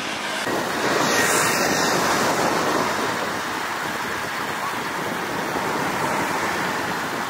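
Steady outdoor rushing noise, the open-air ambience of a street, swelling about a second in and easing off again after a couple of seconds.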